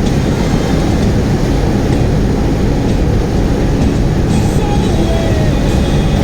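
Steady, loud road and wind noise from a vehicle in motion, with engine and tyre rumble heaviest in the low end.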